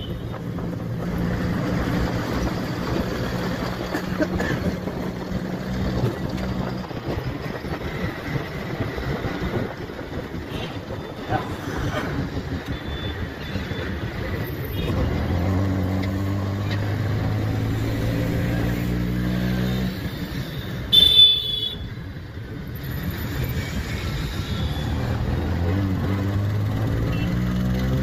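Auto rickshaw engine running in street traffic, with its pitch rising near the end as it speeds up. About three quarters of the way through, a vehicle horn gives a short honk, the loudest sound in the stretch.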